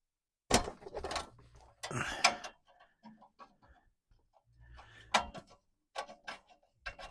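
Irregular sharp clicks and knocks of hard plastic and metal parts being handled as the electrical connector is worked off the exhaust flap actuator.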